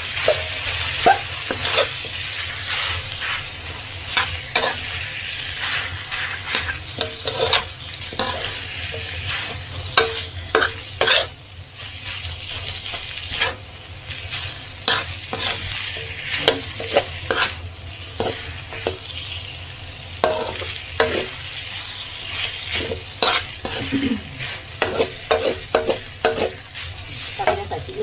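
Rice being stir-fried and mixed with basil duck in a sizzling pan: a steady frying hiss with a spatula clinking and scraping against the pan over and over at an uneven pace.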